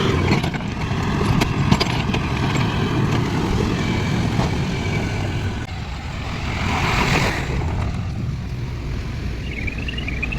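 Heavy diesel machinery engine running steadily, with a hiss swelling about seven seconds in and a high wavering squeal near the end.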